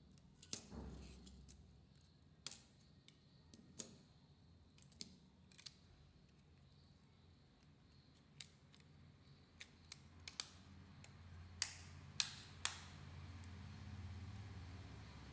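Sharp plastic clicks and snaps of a Samsung phone's housing being pressed and clipped back together by hand. About a dozen scattered clicks, the loudest three close together near the end, over a faint low hum.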